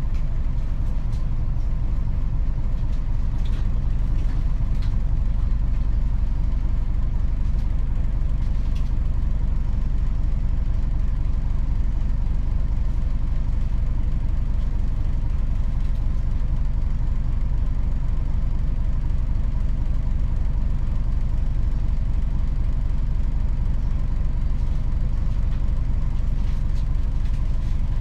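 Mitsubishi Fuso Aero Star city bus's diesel engine running with a steady low drone, heard from inside the bus, with a few faint clicks and rattles between about 3 and 9 seconds in.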